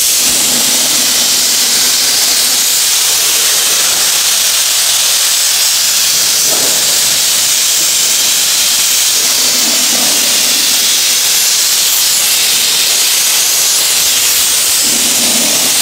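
Compressed-air paint spray gun spraying paint in one long, steady hiss, starting abruptly as the trigger is pulled.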